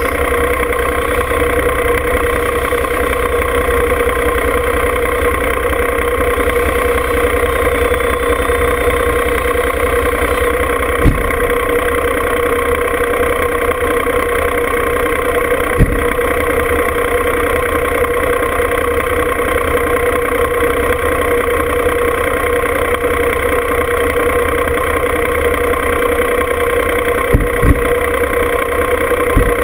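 John Deere 2305 compact tractor's three-cylinder diesel idling steadily, with a few sharp knocks breaking through now and then.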